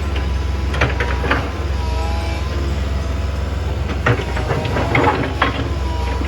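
Hydraulic excavator running with a steady engine drone and a whine from its hydraulics, with stones clattering and rattling in short bursts about a second in and again from about four seconds in as the stony soil is worked to separate stones from soil.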